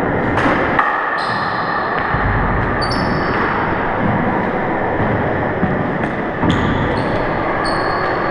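Sharp knocks and brief high squeaks or pings from play on a hardwood handball court, about six of them, over steady background noise.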